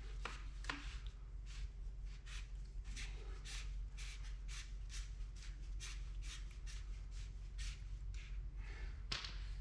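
Barrel tube of a Milwaukee battery-powered grease gun being screwed by hand into the gun's head: faint, regular scraping strokes, about three a second, one for each twist.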